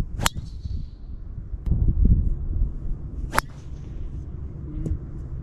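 Two sharp cracks of a golf club striking a ball off the range mat, about three seconds apart, each followed by a brief hiss.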